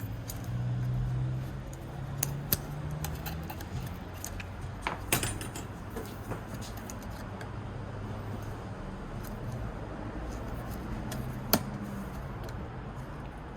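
Scattered sharp clicks and light rattling as a plastic bracket is worked loose inside an iMac by hand and tool, over a steady low hum.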